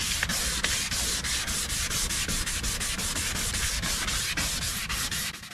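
A plastic car headlight lens being sanded by hand with 800-grit wet sandpaper, in rapid, even back-and-forth strokes: the first, coarse step of taking off the dull, rough weathered surface of the lens.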